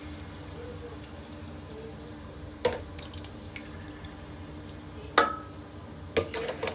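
Kitchen clatter: a few sharp clinks and knocks of utensils and cookware, the loudest a metallic clink about five seconds in that rings briefly, with a cluster of knocks near the end, over a steady low hum.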